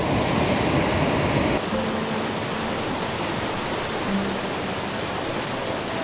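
Steady rush of fast water pouring over a river weir. About one and a half seconds in, the sound changes slightly, and faint low held tones come in and out over it.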